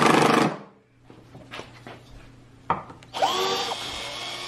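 A cordless impact driver hammering its bit against a steel bar is the loudest sound, and it stops about half a second in. About three seconds in, after a click, a cordless drill starts up: its motor whine rises, then settles into a steady run as it spins the bit on the steel bar.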